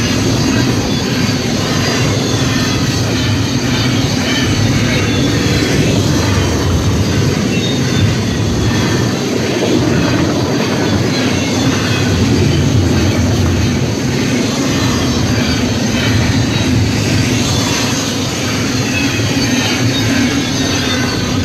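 Union Pacific double-stack container freight train passing at high speed: a continuous loud rumble and rattle of steel wheels on the rails as car after car goes by.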